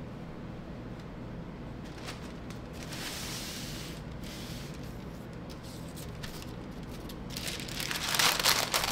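Wax paper rustling and crinkling as it is lifted and folded over, starting about seven seconds in and growing louder; before that only a faint steady hum.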